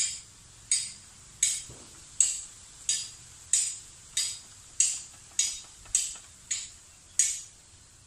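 A small animal's sharp, high call repeated about twelve times, roughly one and a half calls a second, each dying away quickly; the calls stop near the end.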